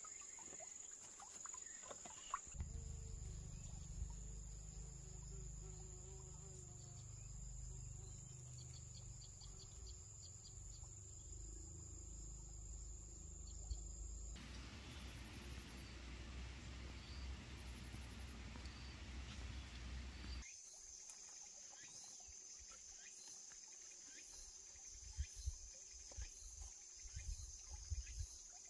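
Insects chirping in a steady high trill. For a long stretch in the middle it gives way to a low rumble and then a steady hiss, and a few light knocks come near the end.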